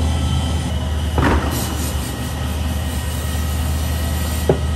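Boeing 737 landing gear swing check: a steady low mechanical hum of the gear's hydraulic power. About a second in comes a clunk with a brief high hiss, and near the end a sharp knock.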